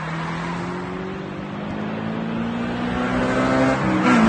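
Sports car engine accelerating hard, its pitch rising steadily and growing louder, with a quick gear change near the end.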